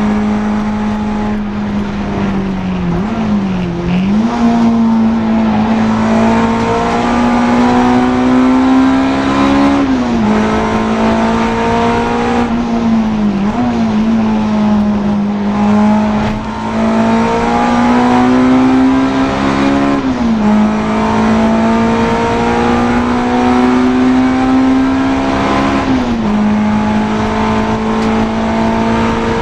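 Honda Integra DC2 race car engine pulling hard, the revs climbing steadily and dropping sharply at each gear change, about five times.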